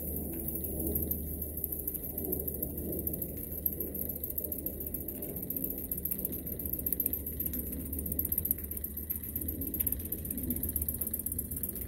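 Jensen toy live-steam engine running, its flywheel and crank turning with a steady, rapid mechanical clatter.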